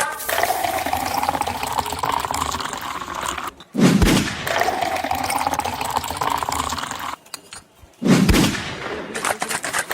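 Liquid poured into a glass twice, the pitch rising as it fills, each pour followed by a loud sudden low thump.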